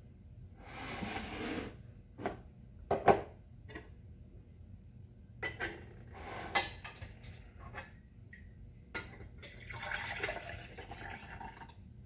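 Elderberry juice ladled from a stainless pan and poured through a funnel into a glass canning jar: three short spells of pouring liquid, with a few sharp clinks of the metal ladle against the pan and jar in between.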